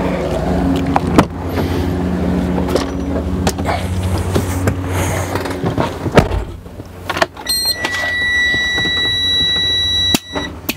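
Semi-truck's diesel engine idling steadily, with footsteps and a sharp knock about six seconds in. From about seven and a half seconds a steady high-pitched electronic tone sounds over the idle until near the end.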